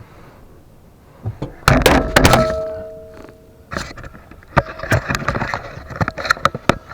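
Heavy metal clanks about two seconds in, with a ringing tone that hangs on for about a second and a half, followed by a run of smaller knocks and rattles as metal parts are handled.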